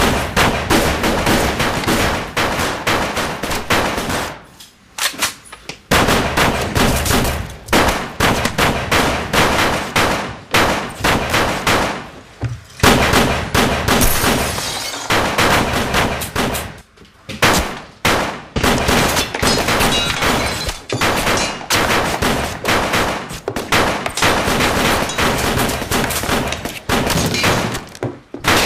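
Heavy gunfire from several guns in a dramatised shootout: rapid, overlapping volleys of shots that go on almost without a break, with a few short lulls, the first about five seconds in.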